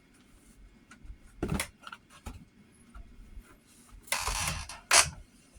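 Close-up eating noises of a person eating ramen: scattered clicks and knocks, a longer noisy rush about four seconds in, and one sharp, loud knock near the end.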